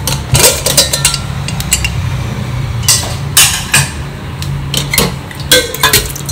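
Stainless steel pressure cooker being opened and handled: a string of metal clanks and knocks from the lid and pot, the loudest about three seconds in, over a low steady hum.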